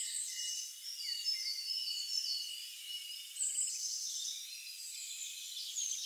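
Several songbirds singing over one another in a forest chorus: overlapping high chirps, whistled phrases and rapid trills.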